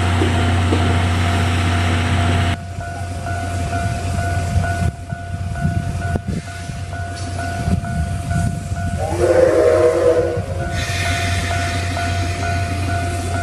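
C57 steam locomotive and train running loudly, then a cut to a level-crossing alarm ringing in an even repeating pattern. About two-thirds through, the locomotive's steam whistle blows once for about a second and a half, after which the train's rumble and hiss rise again.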